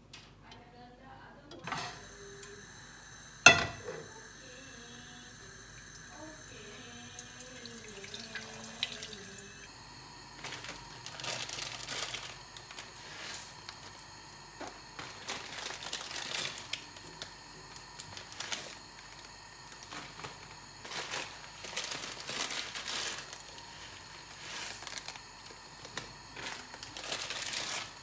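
Water running and splashing in uneven bursts, with a single sharp click, the loudest sound, about three and a half seconds in.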